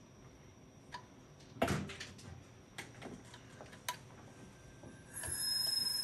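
A few sharp, irregular clicks from an opened IBM XT 10MB hard drive as its platter and head assembly are nudged by hand while the drive stalls and will not spin up under its own power. About five seconds in, a steady high electrical whine starts as power returns to the drive.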